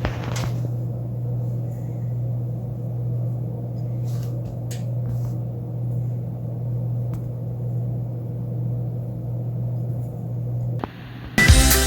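A steady low hum with a few faint light clicks. About eleven seconds in, the hum cuts off with a click and loud music starts.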